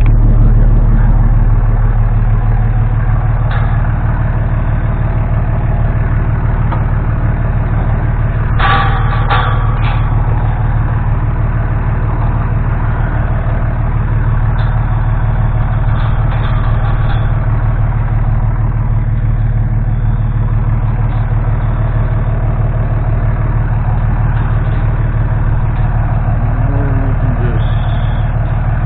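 Engine idling steadily, a low even hum, with a few sharp clicks about nine seconds in.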